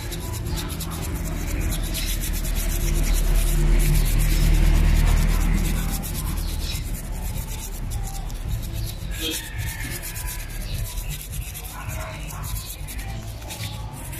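Toothbrush scrubbing the inside of a motorcycle brake caliper, bristles rubbing quickly back and forth over the grimy metal to clean it. A low rumble swells in the middle.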